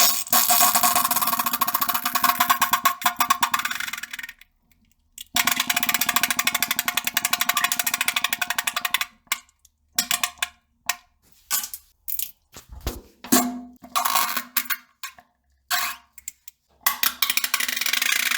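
Farting: two long farts of about four seconds each, a second apart, then a string of short spurts, and another long fart starting near the end. Each fart is a fast, buzzing run of pulses.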